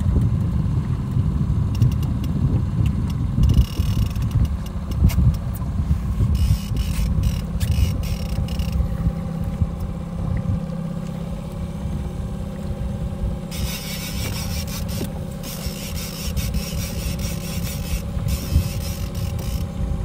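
A boat's outboard motor runs steadily at trolling speed, a continuous low drone with a faint steady hum above it. Over it, short spells of higher-pitched hiss and a run of clicks come and go.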